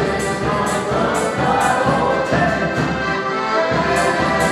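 Live folk dance band playing a lively tune: a sustained melody over a steady beat about two a second.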